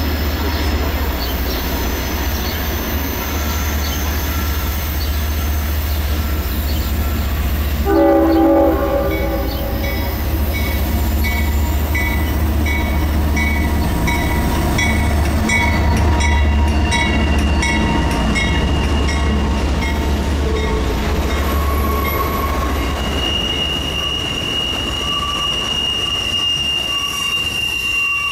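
CSX freight train passing, its diesel locomotives giving a steady low rumble. A short horn blast comes about eight seconds in, then a repeated ringing tone about twice a second for roughly ten seconds. Toward the end a high, steady wheel squeal builds as the cars roll by.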